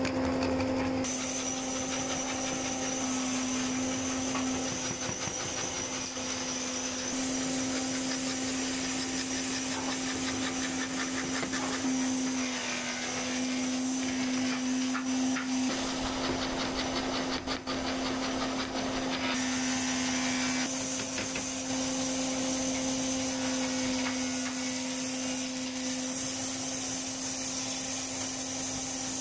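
Electric belt-driven scroll saw running and cutting through a plywood board, a steady mechanical hum from the motor and reciprocating blade with a higher whine over it.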